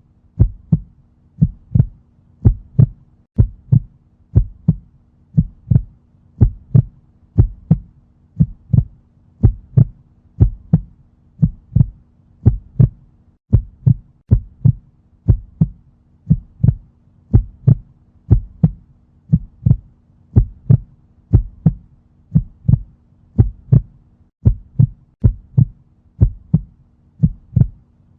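Heartbeat sound effect: steady, slow lub-dub double thumps repeating a little over a second apart, over a faint low hum.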